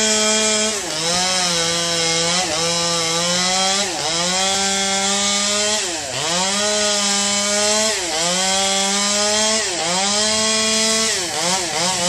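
Two-stroke chainsaw at high revs cutting into wood. Its engine pitch sags and dips sharply every second or two as the chain bites under load, then recovers. Near the end the dips come in quick succession.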